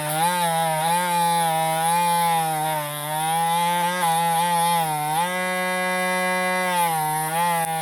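Small rotary tool fitted with a wire brush, running continuously with a whine whose pitch sags and recovers as the brush is pressed against a die-cast metal part to clean it.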